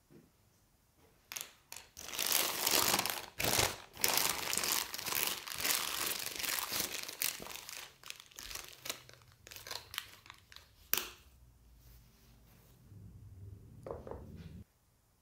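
Clear plastic piping bag crinkling and crackling as it is gathered and twisted shut around macaron batter, dense at first, then thinning out, with one sharp tick about eleven seconds in.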